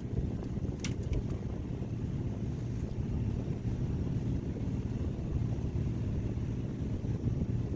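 Fishing boat's engine running steadily with a low hum, and a couple of short sharp clicks about a second in.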